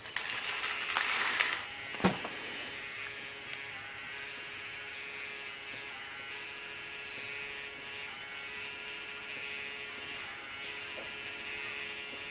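Small geared electric motor whirring steadily as it turns a solar-tracking platform, switched on by direct sunlight falling on its photoresistor. It is louder for the first second or so, with one sharp click about two seconds in.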